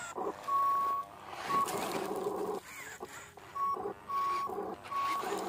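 Toy RC Volvo A40G articulated hauler's sound module giving high electronic reversing-warning beeps in irregular bursts, some short and some longer, over lower motor and drive noise that comes and goes as the truck moves.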